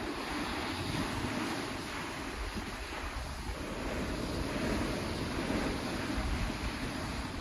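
Steady rushing noise of wind buffeting the microphone, with no distinct events.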